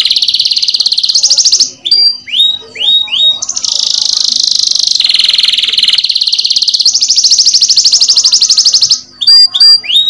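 Domestic canary singing: long, very rapid rolling trills that change pitch from one phrase to the next. About two seconds in, and again near the end, the trills break into a few separate sliding whistled notes.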